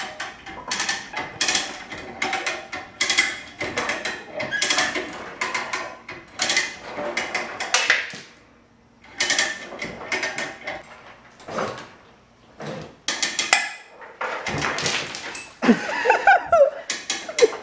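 Come-along ratchet hoist clicking in quick runs as it is cranked, hauling a riding mower up by its front end. There are a few squeaks near the end.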